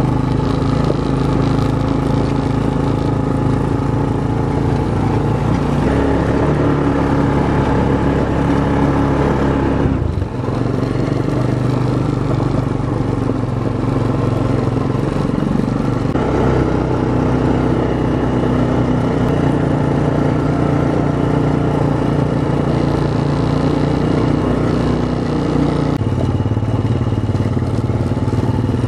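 ATV engine running steadily under way, heard from on board the quad. Its drone steps up and down in pitch several times as the speed changes.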